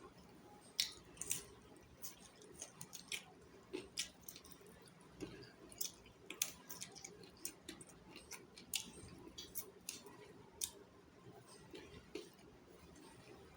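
Close-miked chewing and mouth sounds of a person eating chicken feet curry: irregular sharp clicks and wet squishes.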